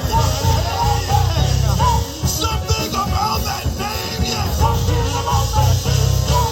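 Live gospel band playing an up-tempo Pentecostal praise number: organ melody runs over bass guitar and drums.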